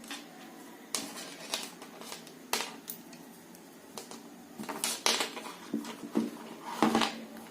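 Irregular light clicks and taps of small hard objects being handled and set down, with a quick cluster about five seconds in and the loudest tap near the end.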